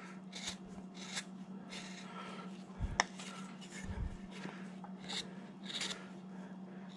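A number 9 carving gouge, about 10 mm wide, paring chips from a hand-held wood carving: a series of short scraping cuts, with a sharp click about three seconds in.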